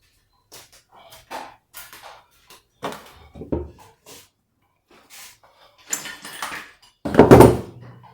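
Knocks and metallic clicks of tools and parts being worked while a ball bearing is removed from a washing machine's spin shaft, with one heavy knock about seven seconds in.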